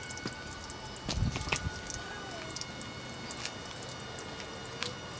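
Engine coolant dripping and spattering from the car's radiator drain onto the ground in many small irregular drops, with a dull low knock about a second in.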